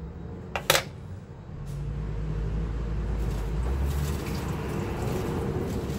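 Two quick knocks of a cleaver set down on a wooden cutting board, then a kitchen tap turned on, running steadily into a stainless-steel sink over a pineapple held under it.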